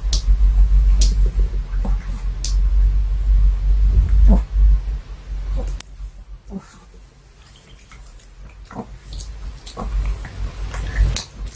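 Pomeranian sniffing and licking the floor close to the microphone, then smacking her lips, with wet clicks and low rumbling bumps. She is hunting for the last bits of a finished duck-bone chew treat. The sounds ease off for a couple of seconds past the middle, then pick up again near the end.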